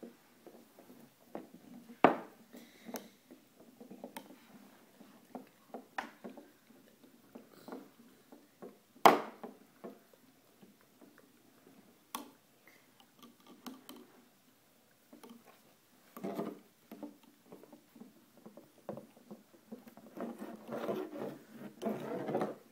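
Plastic Weebles wobble toys tapping and knocking against a wooden tabletop as a toddler handles and pushes them, with scattered light taps and two sharper knocks about 2 and 9 seconds in.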